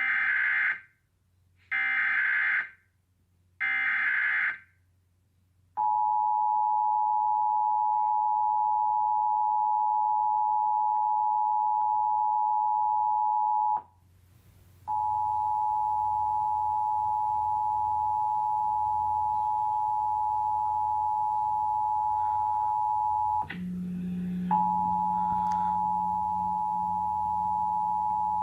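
Emergency Alert System test: three short bursts of warbling SAME header data, about a second each. Then the steady EAS two-tone attention signal (853 and 960 Hz) sounds for about eight seconds and cuts off. It starts again a second later over a hiss, drops out briefly near the end, and comes back with a low hum underneath.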